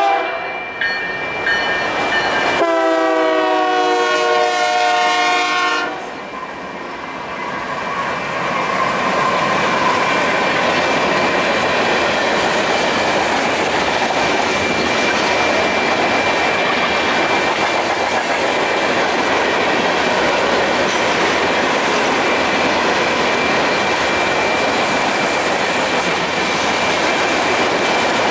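Freight locomotive horn: the tail of one blast, then a long blast of about three seconds as the train nears the crossing. Then the manifest freight train's cars roll past with steady wheel-on-rail noise and clickety-clack. Throughout, the crossing's electronic bell keeps ringing.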